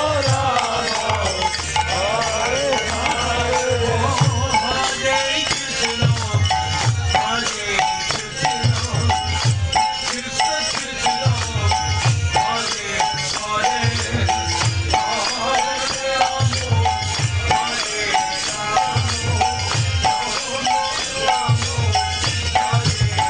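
Devotional kirtan music: chanting voices over a steady jangling percussion and a low drum that strikes in repeated phrases about every two seconds.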